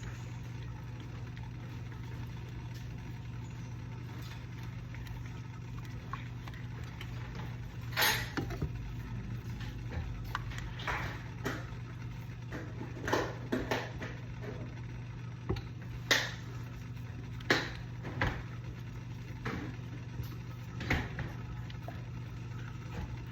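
Steady low hum, with a utensil scraping and knocking against the pan as thickening sauce is stirred, in irregular strokes starting about a third of the way in.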